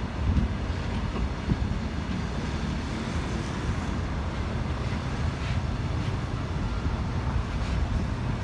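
Freight train of flat wagons rolling past at close range: a steady low rumble of wheels on rail, with a few faint clicks.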